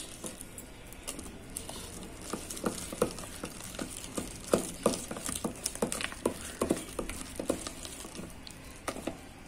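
Hand beating and mixing thick urad dal batter in a stainless steel bowl, making irregular short smacks about two or three times a second. The batter is being beaten to work air into it so the medu vadas puff up and fry crisp.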